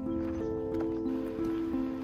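Background music: a melody of held notes stepping from one pitch to the next about three times a second.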